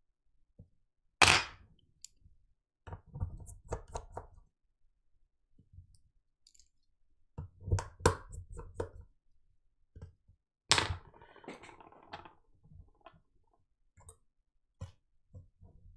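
Handling noise on a workbench: two sharp knocks, one about a second in and another near eleven seconds, with short stretches of light clattering and rustling between them.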